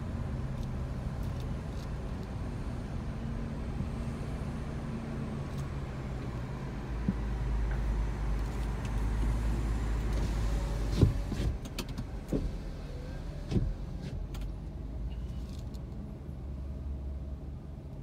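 Street traffic noise: a steady low car engine hum, then a heavier low rumble about seven seconds in from a cement mixer truck crossing the intersection, with three sharp knocks between about eleven and fourteen seconds.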